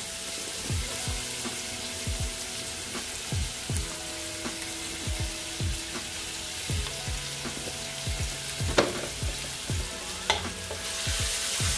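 Shredded carrots and ginger sizzling and frying in hot coconut oil in a pot, with a steady hiss and a couple of sharp taps near the end.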